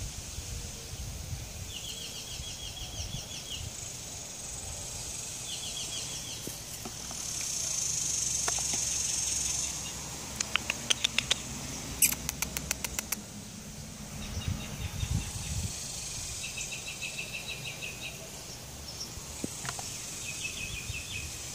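Outdoor ambience: short, rapid chirping trills come and go several times. A hiss swells for a couple of seconds, and a quick run of sharp clicks comes about halfway through, all over a low rumble.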